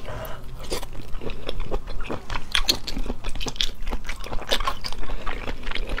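Close-up chewing and biting of spicy stir-fried abalone, with many short, irregular mouth clicks and smacks. The abalone meat is firm and springy.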